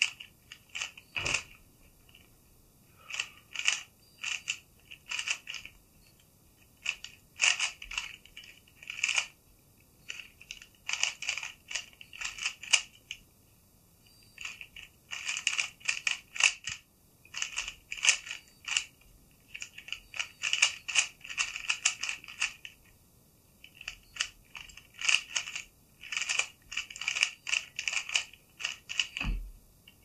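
Meilong 3x3 speedcube being turned fast during a timed solve: rapid plastic clicking of the layers in bursts of a second or two, with short pauses between them. A low thump near the end as the solve finishes.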